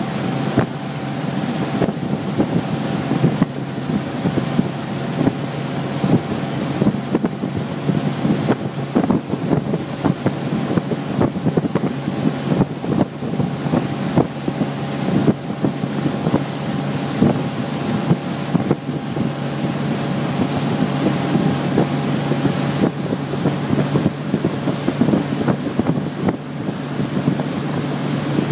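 Motorboat engine running steadily at towing speed, with wind buffeting the microphone and water rushing in the wake.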